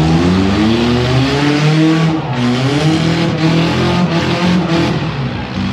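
Demolition derby car engines revving hard, their pitch climbing and dropping again and again as the cars accelerate and ram one another.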